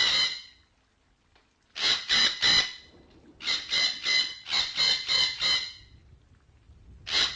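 Red-breasted parakeet giving loud flock calls. They come as bursts of three or four quick, harsh notes, a burst every second or two, with short pauses between.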